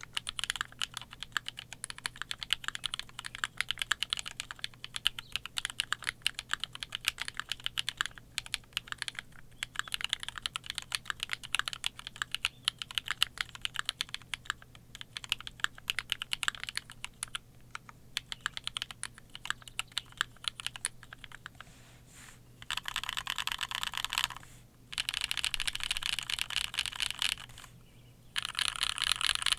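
Typing on a 60% mechanical keyboard with lubed and filmed linear switches (MX black housings, Kailh Cream stems), an aluminium plate and GMK keycaps: a steady run of key clacks. Near the end come three spells of very fast, unbroken key clatter, each about two seconds long.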